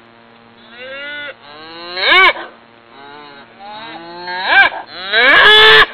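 Cattle mooing in a series of short calls that rise and fall in pitch: a softer one about a second in, then three louder ones, the last drawn out near the end.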